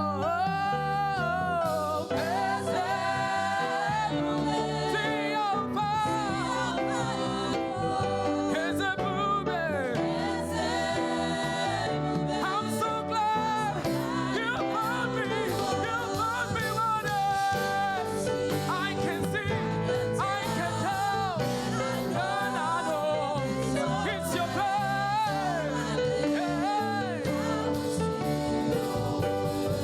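Gospel praise song: voices singing with ornamented, wavering runs over a steady band accompaniment.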